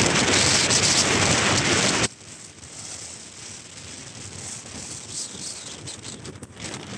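Wind buffeting the microphone of a phone on a moving motor scooter, loud and rough, then cutting off abruptly about two seconds in to a much quieter steady hiss of road noise.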